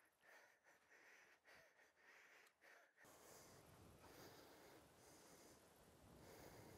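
Near silence: faint background hiss, changing abruptly about three seconds in.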